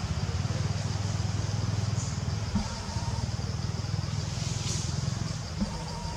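Low, steady rumble of a motor vehicle's engine running.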